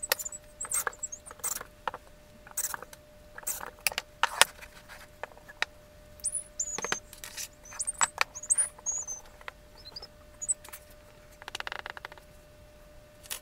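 Irregular clicks and knocks of wooden model parts and small metal bolts and nuts being handled and fitted on a wooden workbench, with a few short high squeaks around the middle and a faint steady hum underneath.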